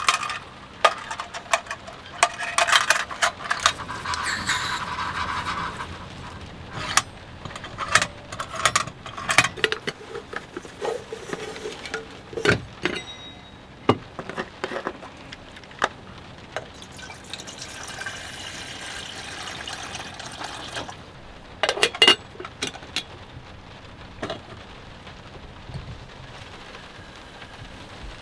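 Sharp clicks and metal clinks of a compact canister camp stove being handled and its pot-support arms unfolded. Twice there is a few seconds of steady pouring as water goes into a metal kettle.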